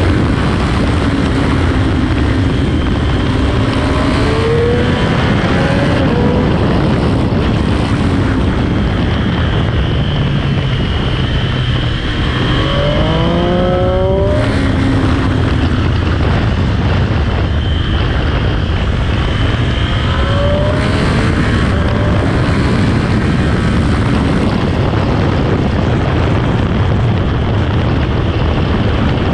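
Sport motorcycle on stock exhaust riding hard on a race track. The engine pitch climbs through the gears and drops back at each shift, over heavy wind rush. About twelve seconds in it eases briefly, then climbs steeply again.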